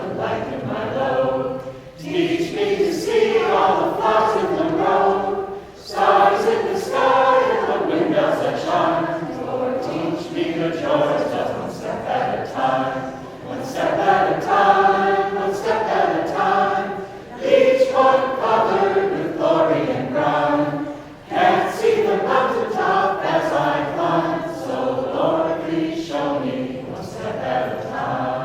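A small vocal group singing a song unaccompanied, in phrases with short breaths between them.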